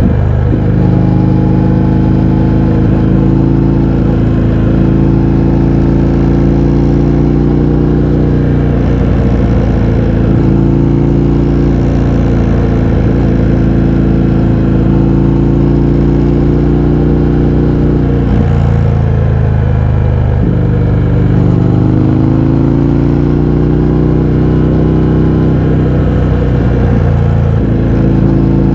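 Indian FTR 1200's V-twin engine running under way through an Akrapovič exhaust with the baffles removed. The loud engine note climbs slowly in pitch, drops suddenly twice a little past the middle, then climbs again and dips near the end.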